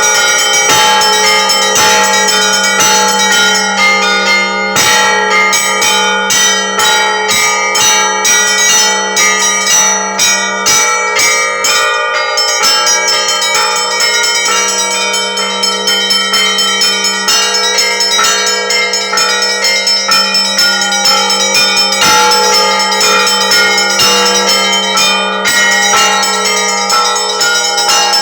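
Russian Orthodox church bells ringing a festive peal: several bells struck in quick succession over the steady hum of a deeper bell.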